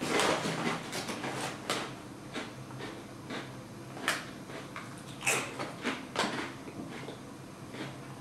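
Crinkly foil chip bag rustling as a hand reaches in, then a few sharp crunches as a Lorenz Crunchips X-Cut ridged potato chip is bitten and chewed, starting about four seconds in.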